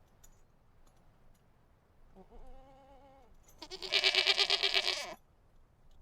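A goat bleating twice: a fainter call about two seconds in, then a much louder, quavering bleat lasting about a second and a half.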